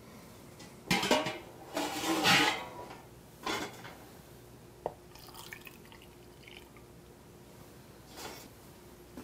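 Red beet brine poured from a measuring cup through a plastic funnel into a glass canning jar packed with hard-boiled eggs, in a few short splashing pours about one to three and a half seconds in. Then comes a single sharp click, followed by faint drips.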